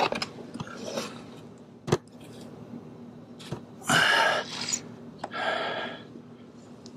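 Quiet handling of a polyester fleece being pressed by hand into wet roof sealant in a metal gutter, with a sharp click just before two seconds in and two short breathy snorts from the worker around four and five and a half seconds.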